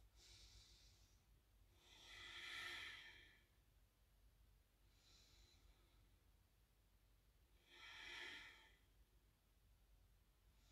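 A woman's slow, deliberate breathing, faint: two long exhales, the first about two seconds in and the second about eight seconds in, each with a softer inhale before it.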